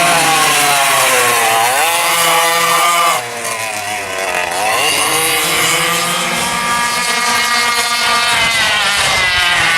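Dual-engine sidewinder racing kart's two-stroke engines at high revs, with a high, raspy, chainsaw-like note. The revs drop sharply just after three seconds as the throttle comes off, then climb steadily again through the gears of the lap.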